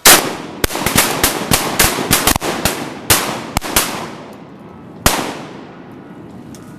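A volley of shotgun blasts from several hunters firing at ducks: about a dozen shots in quick, overlapping succession over the first four seconds, then one last shot about five seconds in, each with a long echoing tail.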